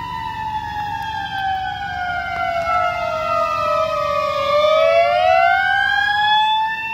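Emergency vehicle sirens wailing on a fire engine and ambulance responding from the station: two overlapping tones slide slowly down and climb back up, loudest about five to six seconds in as the ambulance passes close by.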